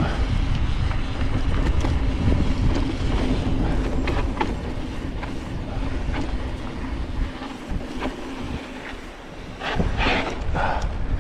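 Mountain bike rattling and clattering down a rough, steep downhill trail at speed, with frequent short knocks from the bike and tyres over the ground. It quietens briefly about eight seconds in, then jolts hard again near the end.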